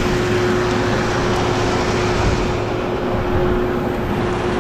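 Engine-driven machinery running steadily at constant speed: a loud, even hum over a rushing noise.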